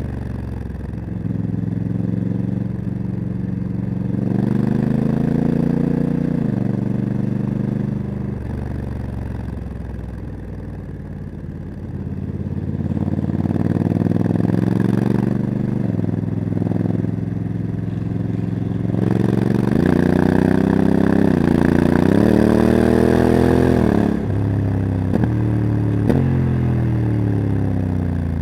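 Honda CRF1100L Africa Twin's parallel-twin engine with a Leo Vince exhaust, pulling up the road. Its pitch climbs, then drops suddenly at each automatic DCT gear change, several times over, with wind rushing past for a stretch near the end.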